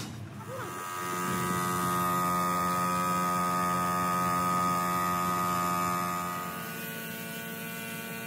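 A motor running with a steady pitched hum. It swells about a second in and eases back after about six and a half seconds.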